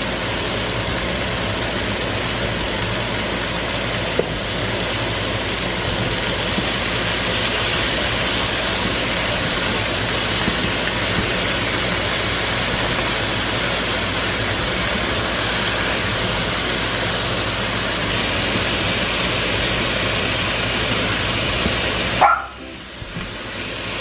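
Chicken thighs sizzling steadily in hot oil with chopped onion in a frying pan, with a single knock of the spoon about four seconds in. The sizzle drops away abruptly for a moment near the end.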